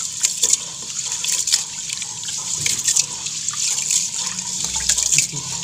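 Rice being washed by hand in a rice cooker's inner pot: fingers swish and scrub the grains through the water in irregular splashes and sloshes.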